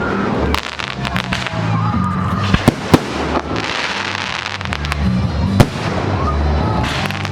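Consumer fireworks going off: a string of sharp bangs and pops, the loudest reports about two and a half and three seconds in and another near six seconds, with a crackling hiss in the middle, over music with a heavy bass line.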